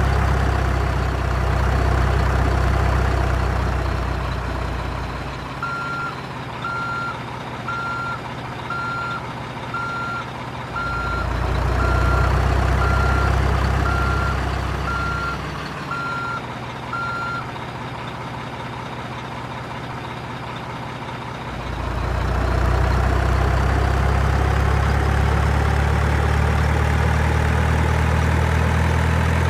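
Truck engine sound, heavy and low, running and dropping back twice, with a reversing alarm beeping about once a second through the middle. Near the end the engine picks up again with a rising whine.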